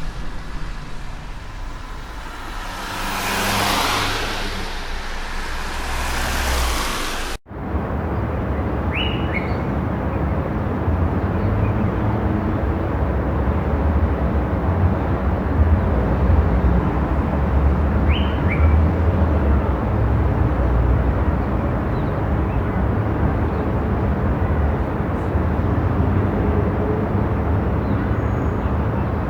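Steady road noise of a moving car, a low rumble with hiss. A swell of higher tyre and wind hiss rises and fades in the first few seconds, then the recording cuts abruptly to a heavier low rumble. A couple of faint short chirps sound over the rumble.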